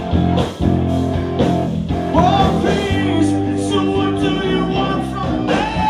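Rock band playing: a man singing over electric guitar and electric bass.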